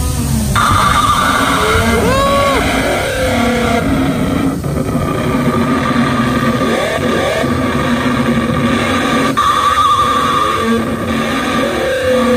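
Dinosaur sound effects from an animatronic ride's speakers: a screech that rises and falls about two seconds in, over a steady, loud rumbling soundtrack of roars.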